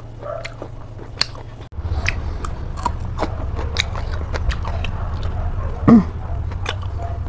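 A person eating pork close to the microphone: chewing and smacking, with many small wet clicks of the mouth. About six seconds in, a short, loud squeal falls in pitch.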